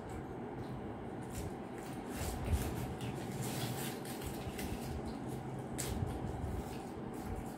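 Steady low room hum, with soft rustling of paper wrappers and eating sounds as egg rolls are unwrapped and bitten, including a few short crisp rustles.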